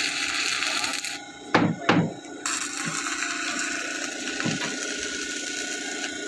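Stick welding on steel rebar: a steady crackling arc hiss that breaks off about a second in, two sharp knocks, then the hiss starts again.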